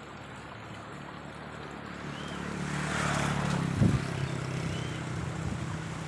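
A motor engine passing by, its hum swelling to a peak about three seconds in and then easing off, with wind buffeting the microphone.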